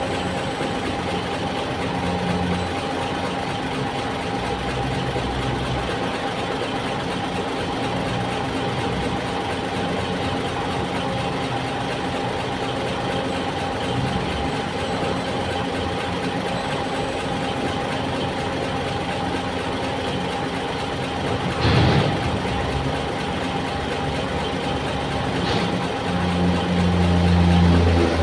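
Rubber-tyred gantry crane's diesel engine running steadily with a steady whine over it. A sharp clank comes about three-quarters of the way through and a lighter one a few seconds later. The engine grows louder near the end as it takes on load.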